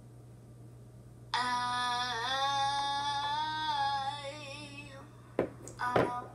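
A girl's singing voice: one sung phrase that starts suddenly about a second in, holds and bends in pitch for about three and a half seconds, then stops. A few sharp knocks follow near the end.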